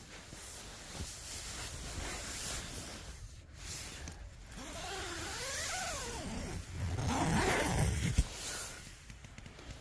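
Tent door zip being pulled open, a rasping zipper run with the nylon fabric rustling, loudest about seven to eight seconds in.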